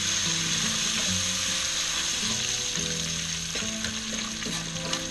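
Diced bacon sizzling and crackling as it fries in a frying pan, with small clicks and scrapes as it is stirred.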